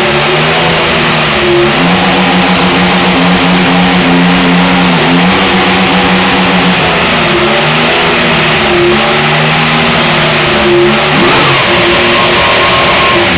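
Mercedes 1.6-litre turbocharged V6 hybrid Formula One power unit of a 2014 McLaren running loudly during a garage warm-up. It is held at a few steady engine speeds, stepping up and back down several times.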